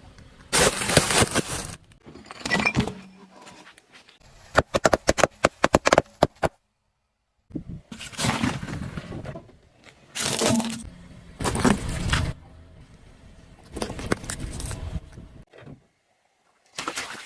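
Objects crushed under a car's tyres: a series of separate bursts of crunching and cracking, with a rapid run of sharp cracks in the middle.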